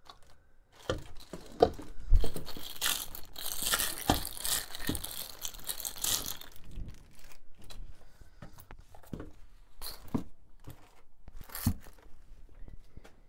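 Clear plastic wrapping crinkling and tearing as it is pulled off a corrugated dryer hose, loudest through the first half, followed by scattered clicks and knocks of hard plastic parts being handled.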